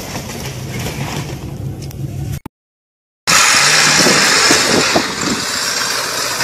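An off-road vehicle's engine runs steadily, then cuts off abruptly for about a second. A lifted 4x4 truck's engine then revs hard as it climbs a steep dirt mound, louder and rougher, with its pitch rising twice.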